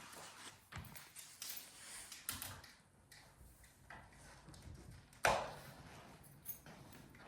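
Sharp pops and ticks at irregular intervals from a patio room's rivets expanding in full sun, the loudest about five seconds in.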